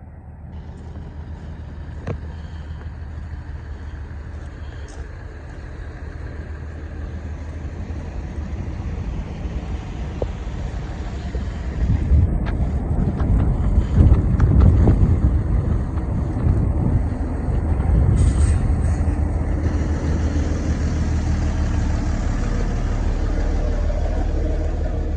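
Mercedes-Benz Unimog diesel truck engine running steadily, growing louder about halfway through.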